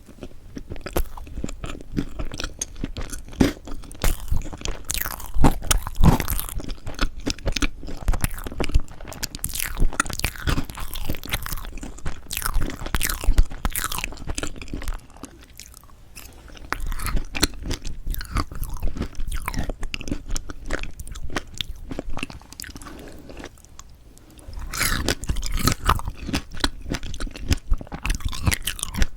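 Close-miked chewing and biting of strawberry chocolate cream cake: a dense run of wet mouth clicks and smacks with some crunch, easing off briefly twice.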